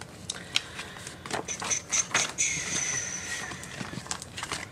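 Paper planner pages and a clear plastic zippered pouch being handled: light rustles and small taps, with a faint thin high tone about a second and a half in.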